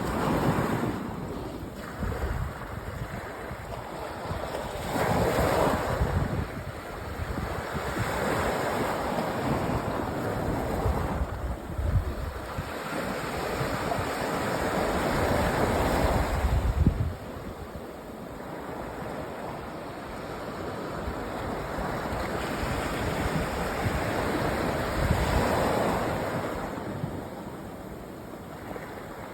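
Sea waves breaking and washing up a sandy beach, the surf swelling and easing every few seconds. Wind buffets the microphone with low rumbles.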